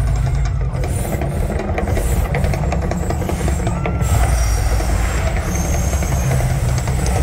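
The Mirage Volcano's eruption show: a loud, continuous deep rumble.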